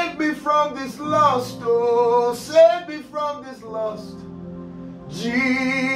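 A man singing worship phrases into a microphone over sustained keyboard chords. His voice moves through several short phrases, breaks off about four seconds in, and returns with a long held note near the end.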